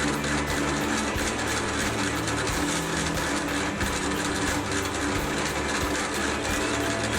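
Drill press running with a rounded wood bit grinding a groove into oak barrel wood: a steady motor hum under a rough, rapidly pulsing cutting noise.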